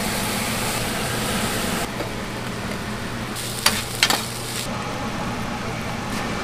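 Food sizzling on a hot charcoal grill and steel griddle, with metal spatulas turning and chopping it. A few sharp clicks of spatula on metal come a little past halfway, over a steady low hum.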